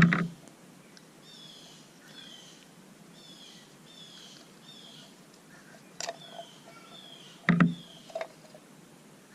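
Knocks and clinks of hand tools and parts being handled while O-rings are picked off an oil filter cap, the loudest at the start and about seven and a half seconds in. Throughout, a bird repeats a short falling chirp about twice a second in the background.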